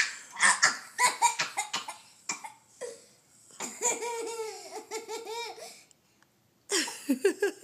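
A boy and his toddler sister laughing: quick bursts of giggles, a longer wavering laugh in the middle, a short pause, then more bursts of laughter near the end.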